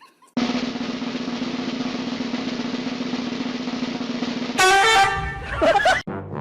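A snare drum roll runs steadily for about four seconds. It then gives way to a louder, pitched sound with several tones that stops abruptly near the end.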